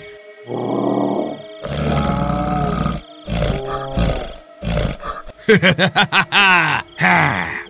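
A man's voice making loud animal-like cries to frighten, several long held calls in a row, then quicker, wavering cries near the end.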